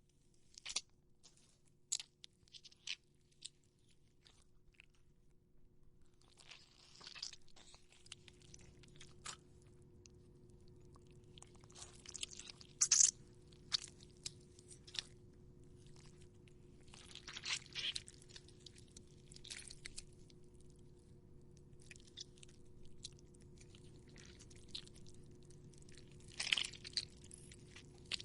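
Foley for gore effects: produce being crushed and broken apart by hand close to the microphone, giving irregular crunches, crackles and wet snaps. The crackles are sparse at first and grow denser after about six seconds, with the loudest crunches near the middle and again near the end.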